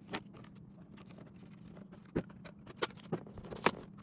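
Handling of a CYMA JD100-2 gel ball blaster: a handful of sharp, separate clicks and knocks from its parts being worked, spread unevenly over a few seconds.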